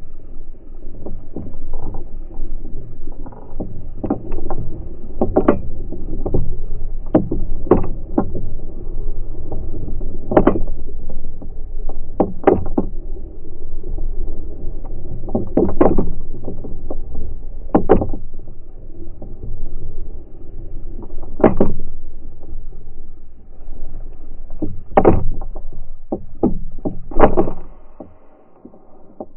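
Sound slowed to a fifth of normal speed from a helmet-mounted GoPro on a spinning pole: a deep, steady wind rumble on the microphone with irregular low thumps every second or two. The rumble and thumps fall away near the end.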